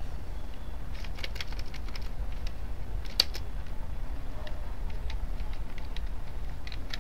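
A few scattered computer keyboard key clicks, one sharper about three seconds in, over a steady low hum.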